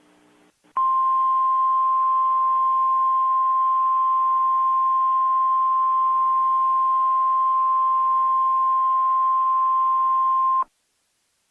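NOAA Weather Radio warning alarm tone: a single steady tone near 1 kHz that comes in sharply about a second in, holds unchanged for about ten seconds and cuts off abruptly, over a faint hiss. It is the attention signal ahead of a tornado warning.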